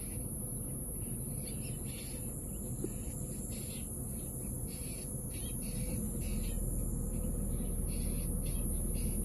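Insects chirping in repeated short pulses over a steady high-pitched drone, above a low rumble that grows louder about six seconds in.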